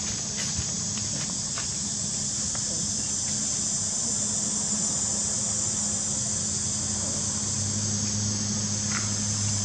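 Steady high-pitched insect buzzing, an unbroken chorus of insects, with a low steady hum underneath that grows stronger near the end.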